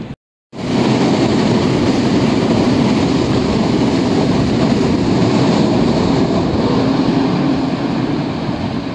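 A train passing close by: a steady rumble of wheels on the rails that starts abruptly about half a second in and eases slightly near the end.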